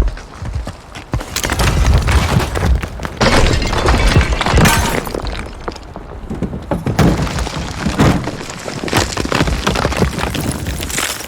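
Masonry, concrete and rubble crashing and crumbling down in a building collapse: a run of heavy crashes over a low rumble, with breaking and shattering debris, separate big crashes about a second in, around three and a half, four and a half, seven and eight seconds in, then dense falling debris near the end.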